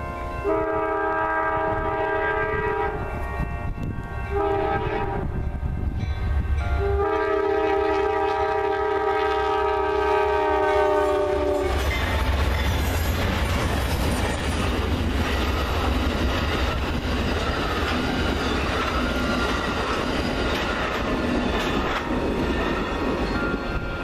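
Two GE P42DC Genesis diesel locomotives sound a Nathan K5LA five-chime horn for a grade crossing: a long blast, a short one and a final long one whose pitch sags as the locomotives pass. The horn then stops, and the Superliner passenger cars go by with a rushing, clattering rail noise over a low diesel rumble.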